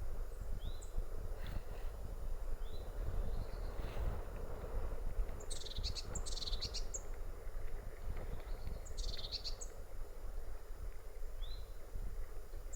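Hard wind rumbling on the microphone and rushing steadily, with small birds singing over it: short upslurred notes every few seconds and two brief trilled phrases near the middle.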